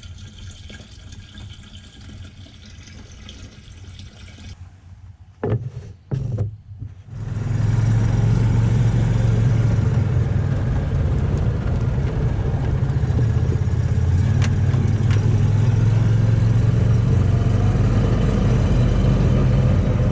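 Two thumps, then a side-by-side UTV's engine comes in about a third of the way through and runs steadily and loudly, low-pitched, until the end.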